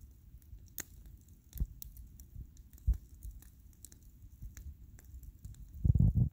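Large wood bonfire crackling, with irregular sharp snaps and pops over a steady low rumble. Near the end comes a louder low buffeting burst lasting about half a second.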